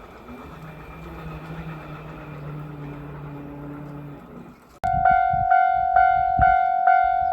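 A faint low steady hum, then about five seconds in a railroad crossing's warning bell starts abruptly, ringing a steady kan-kan at about two and a half strikes a second.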